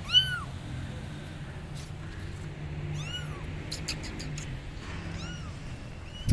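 Abandoned kittens meowing loudly for their mother cat: a high meow right at the start and another about three seconds in, each rising then falling in pitch, with a fainter third about five seconds in.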